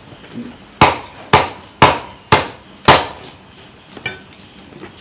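A heavy cleaver chopping through fish onto a wooden chopping block: five sharp chops, about two a second, then one faint knock.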